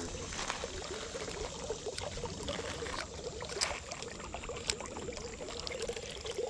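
Shallow creek water trickling and burbling over rocks in a small riffle, steady, with a few light clicks.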